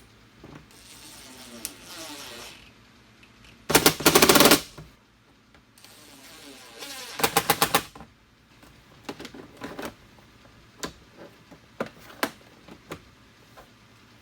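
Tool work on a car door: a brief whirring, then two short bursts of rapid clicking, the second made of about seven quick strokes, followed by scattered light clicks and taps.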